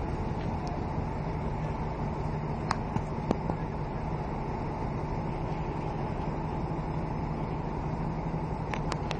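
Steady low rumble of a ship's engines and machinery with a constant low hum, and a few sharp clicks about three seconds in and again near the end.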